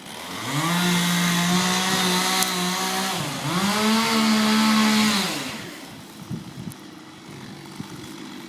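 Two-stroke chainsaw run up to full throttle and held, easing off briefly and revving straight back up. About five and a half seconds in it drops back to a quiet idle.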